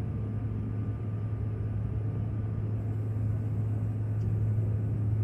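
Jet airliner cabin noise in cruise: the steady drone of the engines and airflow, with a strong constant low hum underneath.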